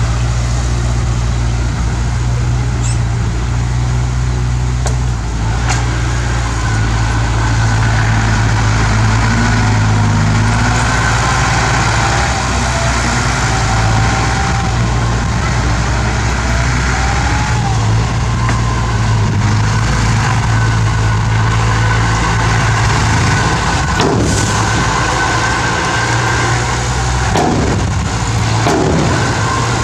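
Bulldozer's diesel engine running steadily under load, with faint high whines over it and a few metallic knocks near the end.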